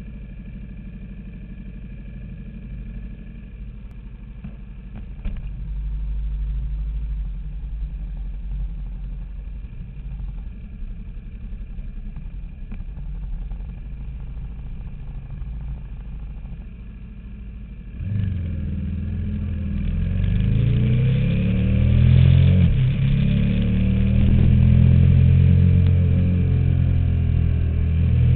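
KTM Super Duke's V-twin engine running steadily at low revs, then about 18 seconds in it revs up as the bike pulls away and accelerates, the engine note climbing and dropping back again and again through the gear changes.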